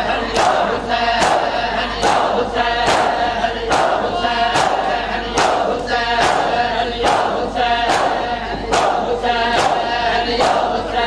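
A crowd of men chanting in chorus while beating their chests in unison (matam), the strikes landing in a steady beat a little more than once a second.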